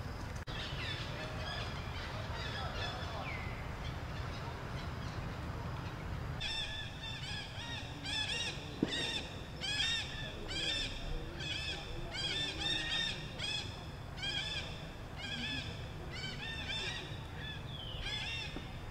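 A monkey calling over and over in short, high, rising-and-falling cries, about two a second, starting about six seconds in, over a steady low rumble.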